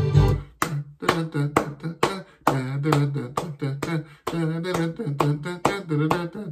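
Hand claps keeping a steady beat, about two or three a second, over a man's wordless vocalizing in rhythm with them. The beat shows the tempo of the music just played. A recorded music clip cuts off just as the clapping begins.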